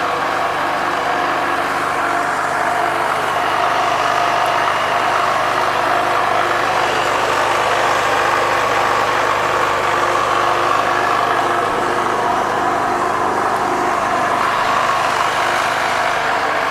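Honda Navi 110's small air-cooled single-cylinder four-stroke engine running steadily at a constant level. The scooter is listed as making an abnormal noise.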